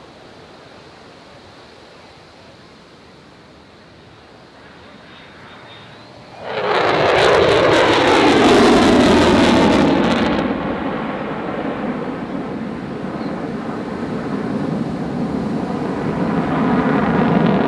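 Jet aircraft flying past low and fast: a sudden loud arrival about six seconds in, with a falling pitch as it passes and a harsh hiss for a few seconds, then a continuing jet noise as it goes away.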